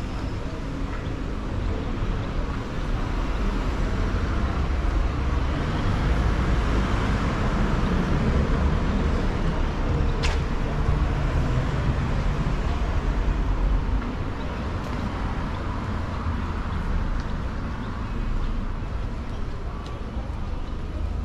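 Street traffic: road noise of passing cars that swells for about ten seconds and then eases, with a short sharp tick about ten seconds in.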